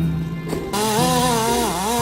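Chainsaw running and cutting, its pitch dipping sharply and recovering as it loads up, over background music.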